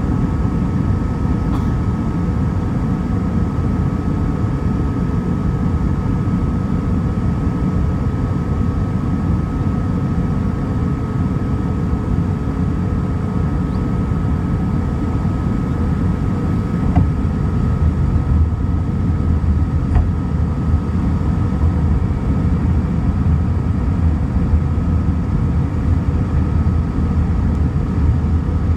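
Steady cabin noise of an Airbus A320ceo in flight on approach, heard over the wing: a deep engine and airflow rumble with a thin steady whine running through it. The low rumble grows stronger a little past halfway.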